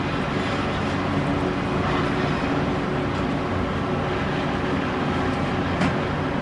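Diesel engine of a Cat 330DL excavator running steadily under load as it dumps a bucket into a dump truck, with a single sharp clank near the end.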